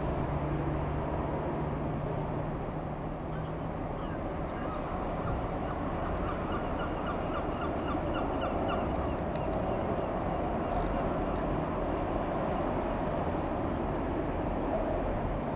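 A rapid run of repeated bird calls, starting about five seconds in and lasting about five seconds, over a steady low rumble with a hum in the first few seconds.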